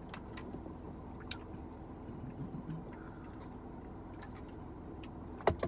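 Steady low hum inside a car cabin, the car running while parked, with a few faint light clicks and a sharp knock near the end.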